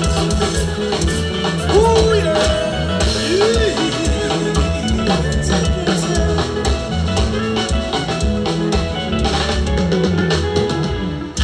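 Live band playing an upbeat dance number, with a steady drum-kit beat and a strong bass line.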